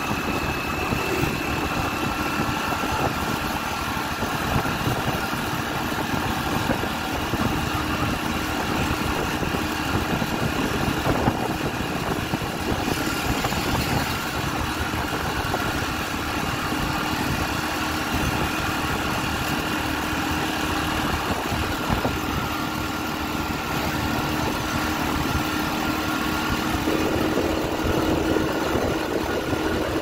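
Motorcycle engine running steadily while riding along a road, mixed with a steady rush of wind and road noise.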